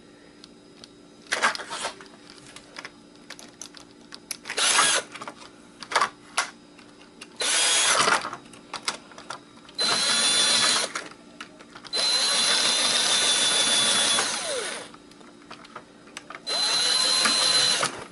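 Handheld power drill running in about six short bursts with a steady high motor whine, the longest lasting nearly three seconds, as it works at a stubborn stripped screw that spins in place. Light clicks and handling noise fall between the bursts.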